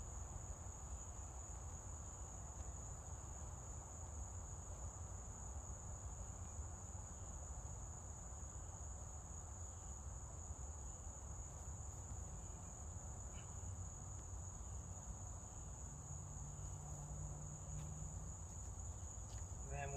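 Insects keeping up one steady, high-pitched drone over a low rumble.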